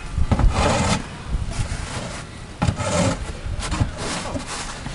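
Snow being cleared by hand: scraping strokes, the longest about half a second in and about three seconds in, over a low rumble of wind on the microphone.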